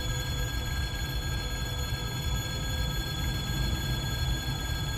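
Low, steady rumble of a pair of distant diesel shunting locomotives, a ChME3 and a TEM18V, running light toward the platform, with several faint steady high-pitched tones over it.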